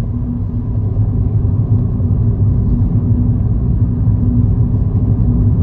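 Car driving along a road: a steady low engine and road rumble with a faint steady hum.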